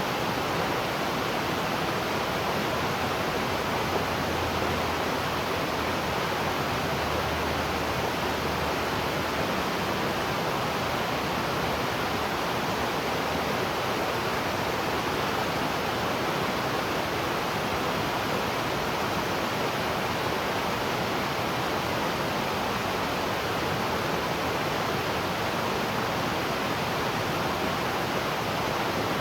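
Waterfall: a steady, even rush of falling water, without change.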